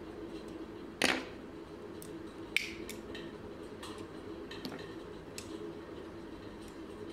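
Clicks and knocks of a screwdriver and plastic switch-board parts being handled on a wooden table. A louder knock comes about a second in and a sharp click about two and a half seconds in, with lighter clicks scattered through, over a steady low hum.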